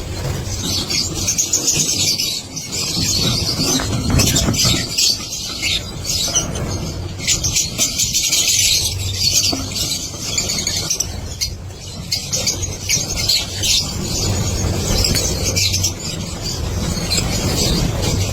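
A colony of lovebirds chattering and calling without pause, a dense mass of high, overlapping calls, with a low hum underneath.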